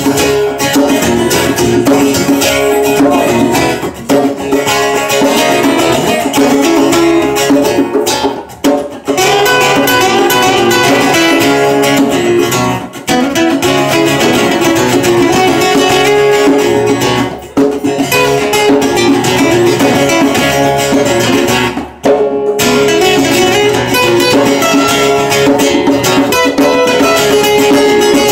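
Two acoustic guitars strummed and picked together in a live instrumental jam passage. The sound briefly drops out a few times.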